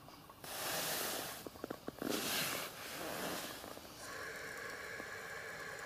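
Hand air pump on top of a 5-litre beer party keg being pressed: two loud hissing strokes, then about four seconds in a steady, whistling hiss that lasts about two seconds.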